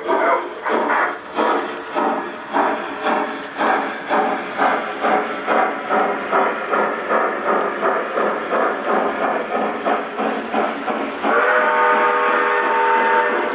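Lionel O-gauge model New York Central streamlined steam locomotive's onboard sound system, chuffing about twice a second. About eleven seconds in, a steady steam whistle of several tones begins and holds.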